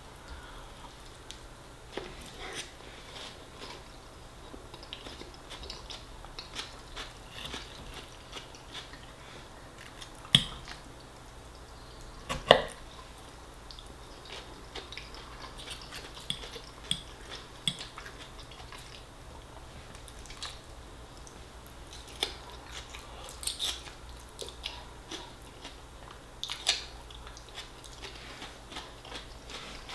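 A man chewing and eating mouthfuls of fisherman's pie and salad close to the microphone, with many small wet mouth clicks. Two much louder sharp knocks come about ten and twelve seconds in.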